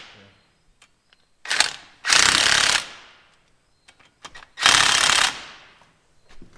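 Impact wrench running bolts down in bursts: a short blip about a second and a half in, then two longer bursts, about 2 and 4.6 seconds in.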